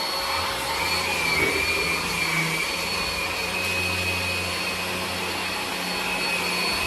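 Hoover ONEPWR cordless vacuum running steadily, its motor giving a high, even whine over the rush of suction.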